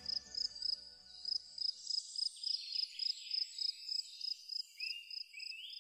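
A high insect chirp repeating evenly, about three chirps a second, while background music fades out over the first two seconds. A few short rising calls come near the end.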